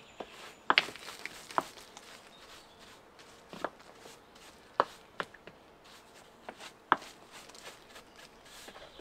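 Flat stones clacking and knocking against one another as they are handled and set on a stone wall: about seven sharp, irregular knocks, several seconds apart near the end, with light scraping of grit between them.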